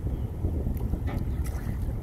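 Wind buffeting the microphone: an uneven low rumble, with a few faint clicks about a second in.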